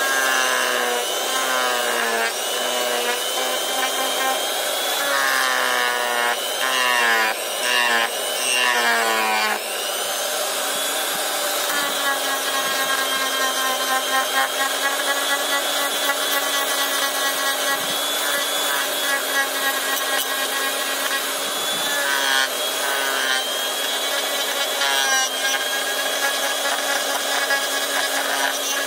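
Handheld electric die grinder with a carving bit running at speed and cutting into a wooden cup blank. Its whine wavers and sags repeatedly through the first ten seconds as the bit bites into the wood, then runs steadier for the rest.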